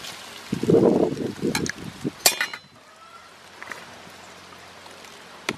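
Metal spoons clinking sharply against plates and a bowl during a meal, with one louder ringing clink a little over two seconds in. A muffled, low, voice-like sound lasts about a second before it.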